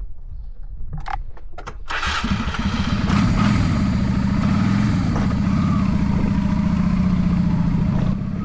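A 1996 Honda Shadow VLX 400's V-twin engine is started, catching about two seconds in. It then runs steadily, with a slight rise and fall in revs soon after it catches.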